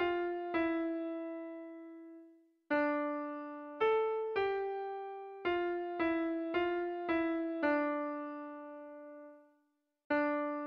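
Background music: a slow keyboard melody of single notes struck one after another, each ringing and fading away. The music drops out to silence twice, once about two and a half seconds in and again near the end.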